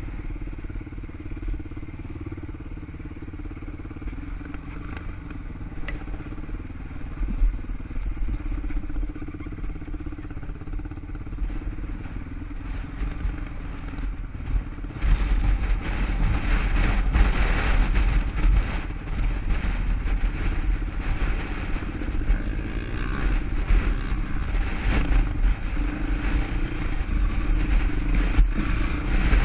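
ATV engine running as the quad is ridden off-road: a steady drone that turns louder and rougher about halfway through.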